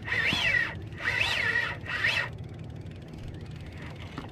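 Trolling reel's drag buzzing as a hooked fish pulls line off in three short runs, the whine rising and falling in pitch with each run.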